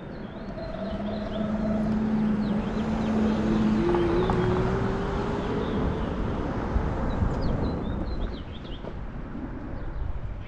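Wind and road noise from a moving motor scooter, swelling as it gathers speed through the first half, with a tone that rises in pitch about four seconds in. Birds chirp near the start and again near the end.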